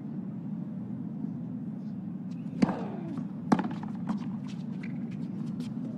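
Tennis ball struck hard by rackets twice, a serve about two and a half seconds in and the return about a second later, each a sharp crack. Lighter ticks and clicks of play follow over a steady low hum of crowd and court ambience.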